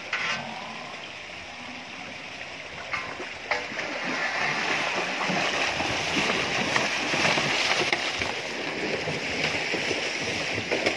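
Desi cows wading out of a shallow concrete bathing pool, water splashing around their legs, the splashing growing fuller and louder from about four seconds in. Two short sharp knocks come about three seconds in.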